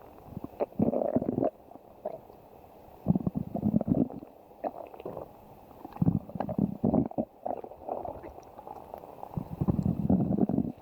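A person's stomach growling, in about five irregular bouts of low rumbling, each up to about a second and a half long, with quieter gaps between them.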